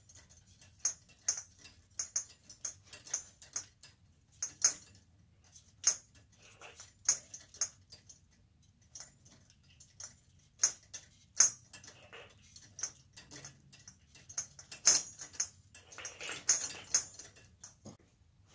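Irregular light clicks and small rattles of chandelier parts being handled as wire is fed through a socket cup and the cup is set on the arm, with a longer rustle near the end.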